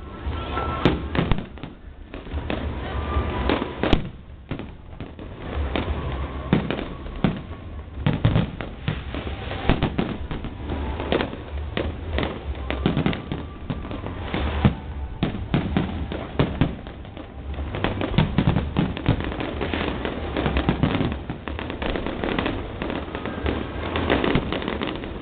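Fireworks going off in an irregular string of bangs and crackles, close one upon another, over a low rumble.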